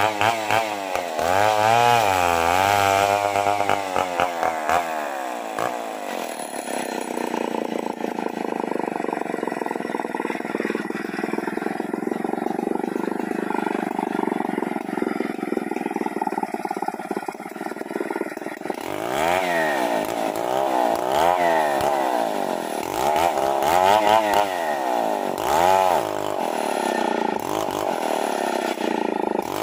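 Two-stroke chainsaw ripping a mountain matoa hardwood log lengthwise. The engine rises and falls in pitch with the throttle for the first few seconds, then runs at a steady high pitch, then revs up and down again about once a second in the last third.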